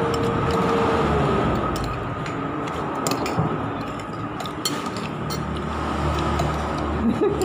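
Spoon clinking a few times against a plate over a steady rumbling background noise with a faint steady hum.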